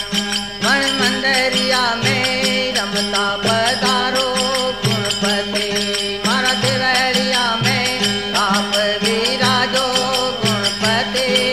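Rajasthani devotional folk music (Marwari desi bhajan): a melody that slides between notes, over a steady drone, with a regular drum and rattling percussion beat.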